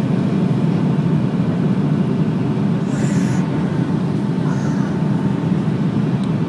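Steady low roar inside an airliner cabin on approach to land: jet engine and airflow noise heard from a window seat over the wing. A brief higher-pitched hiss about three seconds in.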